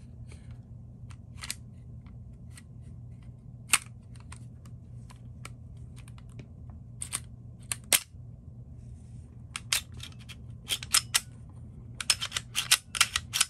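Sharp mechanical clicks of a PSA Dagger 9mm pistol being handled for a function check. There are scattered single clicks, then a quick run of clicks near the end. A steady low hum runs underneath.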